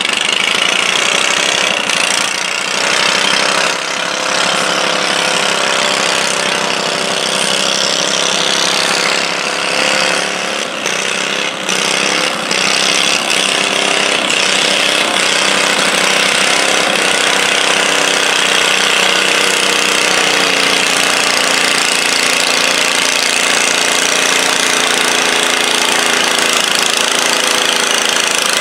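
Small garden tractor engine running steadily under load as it drags a weighted sled, its pitch wavering slightly.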